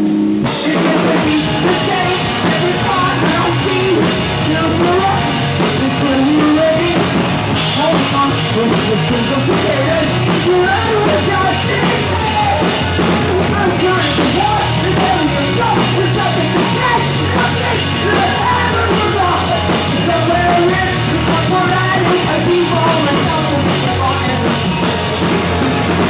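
Live rock band playing loud, with electric guitars, bass guitar and a drum kit and a vocalist singing over them. The full band comes in just after the start, following a few held notes.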